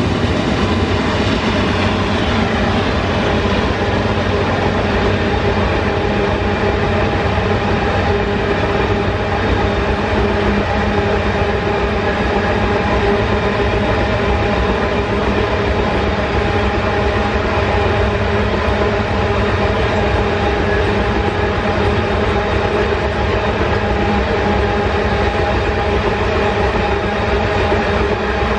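Loaded iron-ore freight train rolling past at speed: a steady, loud rumble of its wagons' steel wheels on the rails, with a few steady tones over it.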